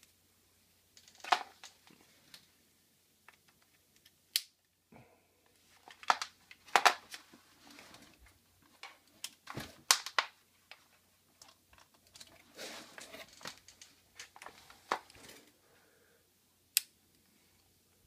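Scattered handling noises: rustling of a power cord with sharp clicks and taps of plastic connectors, several clicks spread through and a patch of rustling about two-thirds of the way in.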